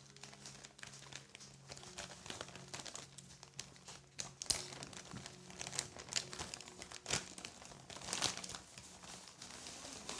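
Plastic packaging crinkling and tearing as a parcel is unwrapped by hand, in irregular crackles and rustles.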